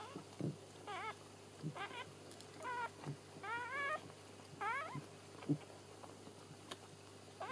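Newborn Shetland sheepdog puppy squealing: about five short, high cries that rise and fall in the first five seconds, one of them longer, then a pause until a last cry near the end.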